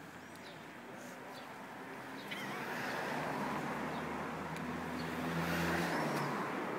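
A car drives past on the street, its engine hum and tyre noise swelling about two seconds in and fading near the end, with small birds chirping.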